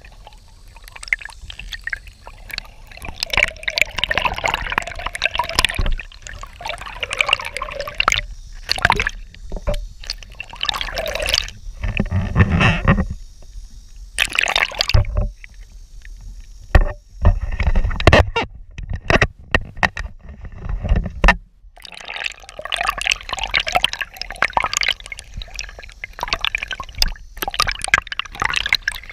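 Water gurgling and sloshing around a camera dipped just under the surface, in uneven bursts with splashy clicks and low rumbles as the camera breaks in and out of the water.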